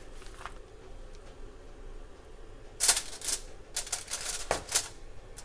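Aluminium foil and a disposable foil pan crinkling in several short bursts, starting about three seconds in, as a strip of raw bacon is laid into the foil-lined pan by hand.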